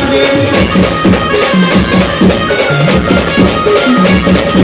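Loud band music amplified through a truck-mounted sound system: a melody of held notes over a steady drum beat and heavy bass.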